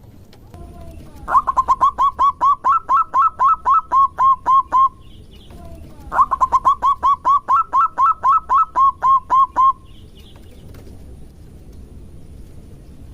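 Zebra dove (perkutut) singing: two rapid runs of staccato cooing notes, about four notes a second, each run lasting about three and a half seconds with a short pause between. It is a perkutut lure song, used to make other zebra doves answer.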